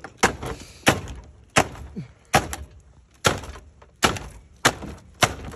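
Work boot stomping repeatedly on the Dodge Neon's engine computer module and the dash wiring around it: about eight hard thuds, roughly one every three-quarters of a second.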